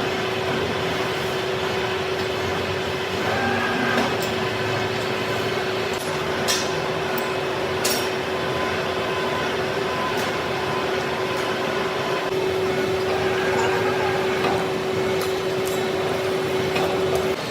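Metalworking machine tool running steadily, with a constant hum and a few sharp metallic ticks; the hum stops just before the end.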